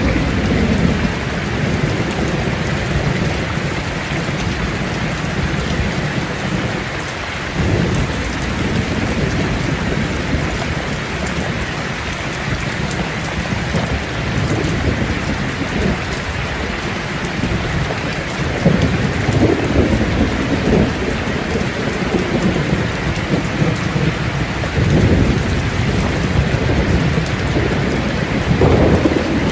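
Steady, heavy rain on surfaces with rolling thunder. Low rumbles swell up several times: right at the start, about a third of the way in, twice in the second half, and again near the end.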